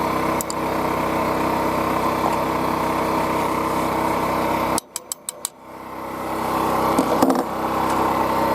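Dual-fuel portable generator running steadily on propane. The sound cuts out abruptly about five seconds in, with a few clicks, then builds back up over the next two seconds.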